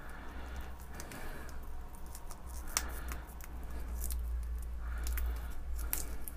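Small metal clicks and scrapes of a hand tool working a metal crimp open on a thermal fuse's lead, over a steady low hum.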